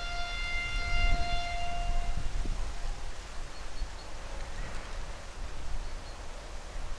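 A diesel locomotive's horn sounds a long high tone that stops about two seconds in, over the low rumble of diesel engines.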